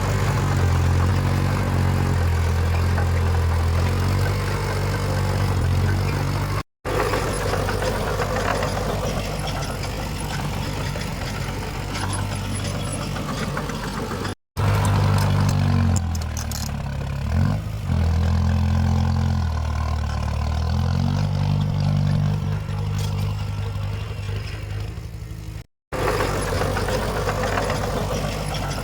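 Heavy diesel engine of earthmoving machinery working, its note rising and falling with the load. The sound cuts out briefly three times.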